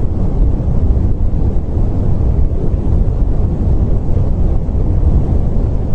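Steady low rushing noise, deep and even, without pauses or changes.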